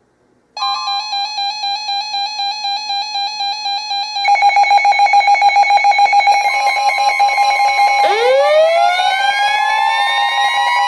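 Weather radio alert tones: a rapid pulsing alarm beep starts about half a second in and gets louder about four seconds in. A steady weather-radio warning alarm tone joins it, and about eight seconds in a siren-like tone winds up, rising in pitch.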